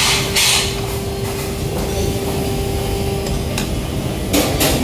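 Buffet restaurant room noise: a steady low hum with a faint held tone that stops near the end, a short hiss at the start, and two sharp clicks near the end.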